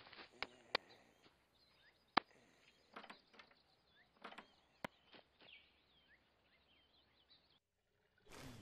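A few sharp clicks and taps, the footsteps and door of a cartoon sound track, over faint chirping birdsong; the sound drops out briefly near the end.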